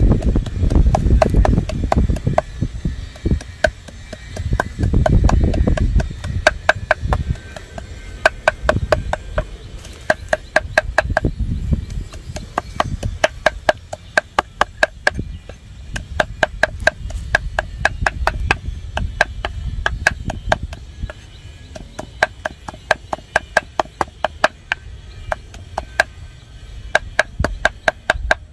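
A cleaver rapidly chopping small pieces of food on a wooden log-slice chopping block: quick repeated chops, several a second, each with a ringing note from the blade, broken by brief pauses. Wind rumbles on the microphone in the first few seconds.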